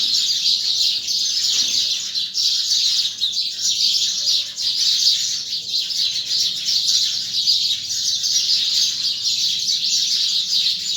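Many small birds chirping at once in a dense, continuous chorus of high, rapid chirps, a dawn chorus.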